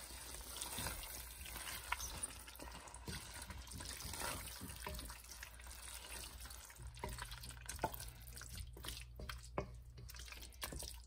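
Wooden spatula stirring chicken pieces through thick, wet masala in a stainless steel pot: faint wet squelching and scraping, with a few light knocks against the pot.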